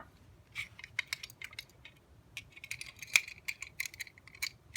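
Light, irregular metal clicks and rattles of a pipe tension tool being turned in the keyway of a clear plastic lever lock, with one sharper click about three seconds in.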